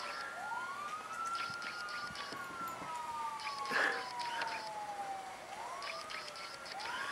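Emergency-vehicle sirens wailing, each rising quickly and then falling slowly over several seconds, with two wails overlapping near the end. Short knocks and rustles sound in between.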